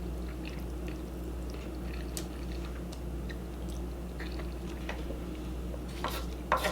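Close-miked chewing of food, faint wet mouth clicks over a steady low hum, with a few louder bites or smacks about six seconds in.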